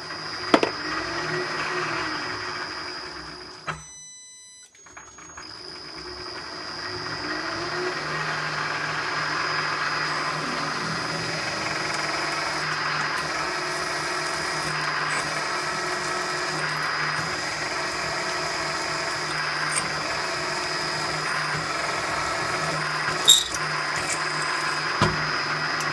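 Milling machine running with a drill bit cutting a hole through a metal block: a steady whir with a constant high whine. The sound drops out briefly about four seconds in, then builds back up and holds, with a sharp click near the end.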